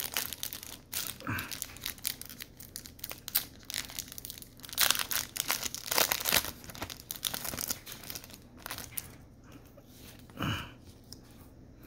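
Foil wrapper of a Pokémon Astral Radiance booster pack crinkling and tearing as it is torn open by hand, in a run of sharp crackles that is loudest about halfway through.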